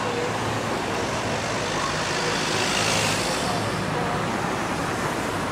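Street traffic noise: cars running in slow town traffic, with a vehicle passing close that swells a little past halfway and fades again.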